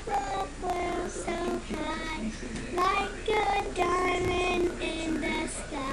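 A child singing, a string of short held notes that change pitch from one to the next.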